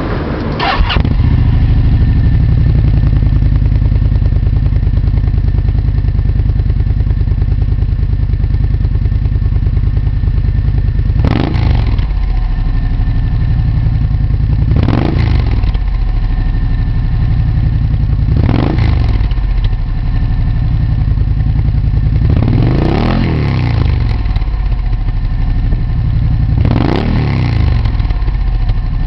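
Gilera GP800's 839 cc V-twin engine breathing through a LeoVince SBK slip-on silencer. It comes up to speed right at the start, settles at idle, then is blipped up and back down about five times, every three to four seconds.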